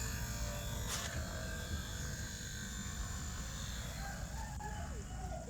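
Small 12 V DC fan motor humming faintly and dying away over the first two seconds, with one sharp click about a second in. Near the end there are faint calls of fowl such as hens.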